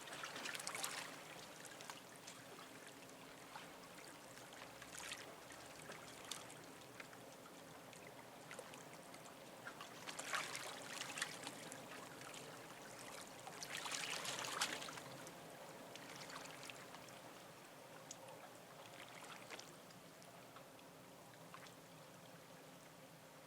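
Small waves lapping and sloshing against the harbour edge, coming in irregular surges, the strongest about ten and fourteen seconds in. A faint steady hum runs underneath.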